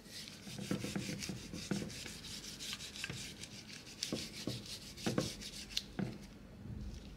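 Gloved hand rubbing salt into a butterflied raw trout on a plate: repeated scratchy rubbing strokes with a few soft knocks of the hand against the fish and plate.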